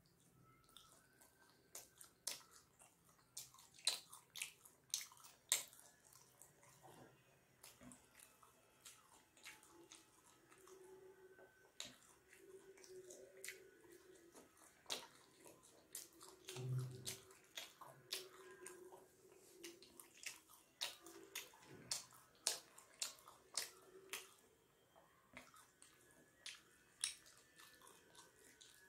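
Wet chewing and mouth smacking as a person eats soft steamed chicken momos dipped in Schezwan chutney: a run of short, sharp, wet clicks and squelches, several a second at the busiest.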